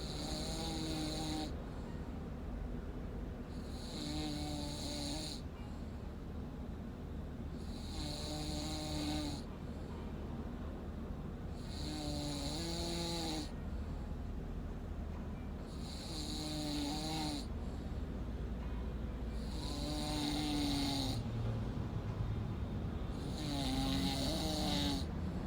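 A man snoring in a regular rhythm, seven snores about four seconds apart. Each snore is a wavering pitched rasp with a hissy edge.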